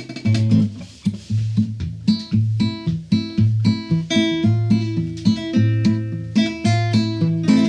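Nylon-string classical guitar played solo: a rhythmic run of plucked chords over a repeating bass line.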